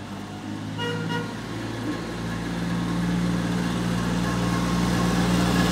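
Engine of a small trackless tourist road train running as it drives up, its steady low hum growing steadily louder as it approaches.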